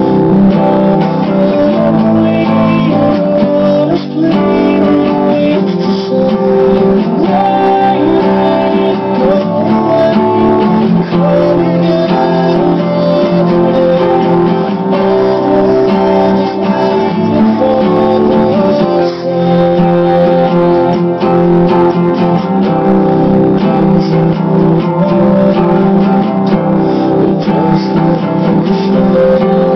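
Steel-string acoustic guitar played without a break: chords and notes that ring on and change every second or two.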